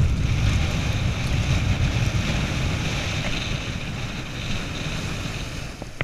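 Strong wind buffeting the microphone in a low rumble, over the steady hiss of surf washing up the beach.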